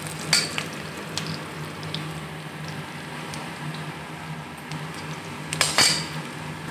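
Chopped onion, garlic and nigella seeds sizzling in hot oil in a metal kadai while being fried until reddish. A steel spoon scrapes and clinks against the pan a few times, loudest just before the end.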